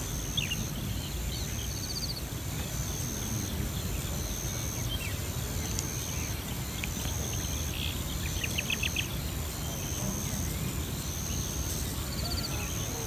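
Insects chirping outdoors: a high, even trill that repeats about once a second, with a few faint chirps in between, over a steady low rumble.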